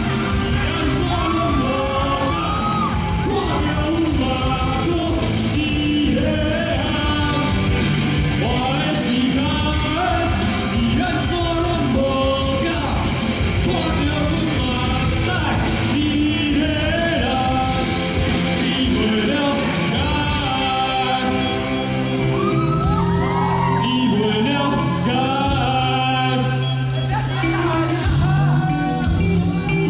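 A singer performing live over a rock-style backing track, with some shouting, echoing in a large hall.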